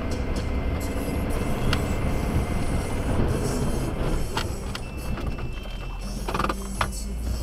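Heavy snow-plow pickup's engine running steadily while it works a snow-covered driveway, heard from inside the cab, with a few sharp clicks in the second half. Music from the truck's radio plays underneath.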